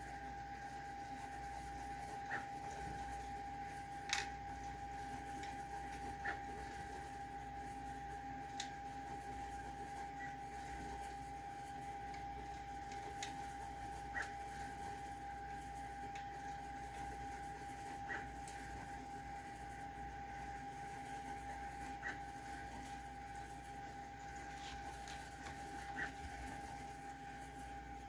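Small metal clicks every couple of seconds as an Allen key works the screws out of a 3D printer's shipping plate, over a steady high-pitched hum.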